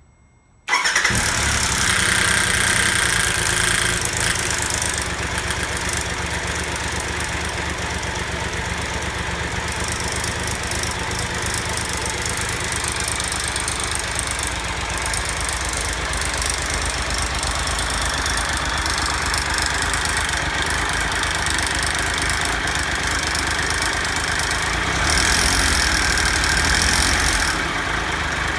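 Triumph Tiger Explorer's three-cylinder engine starting about a second in and then running steadily, with a timing chain rattle that the owner links to the switch to 10w40 oil and a new filter. The sound is louder and brighter for the first few seconds and again near the end.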